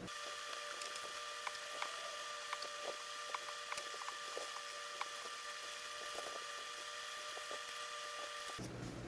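Light scuffing and scattered small ticks of a towel rubbing rubbing alcohol into a briar pipe bowl, over a faint steady hum.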